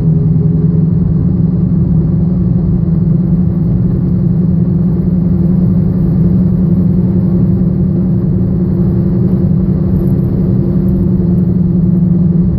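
Steady low drone from a bad wheel bearing on a moving Chevrolet Aveo, over road and engine noise.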